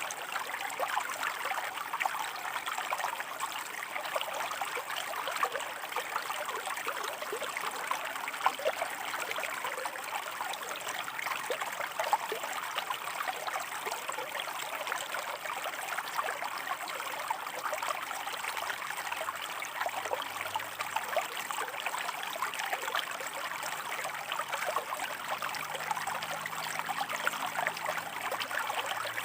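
Shallow stream of water running over rocks, a steady splashing and trickling with many small crisp splashes.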